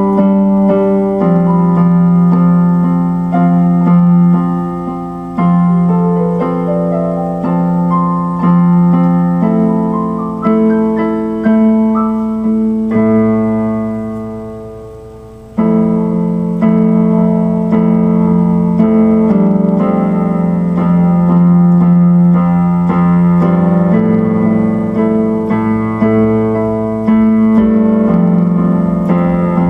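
Electronic keyboard played slowly in an electric piano voice. Chords and single notes are struck about once a second, each ringing on and fading. About halfway through, one chord dies away almost completely before the next one comes in.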